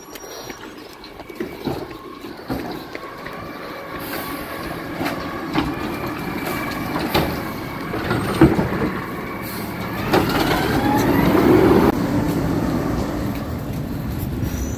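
Garbage truck driving past close by, its diesel engine growing louder and loudest about ten to twelve seconds in, with the engine pitch rising as it pulls away. A few sharp knocks come through the engine sound.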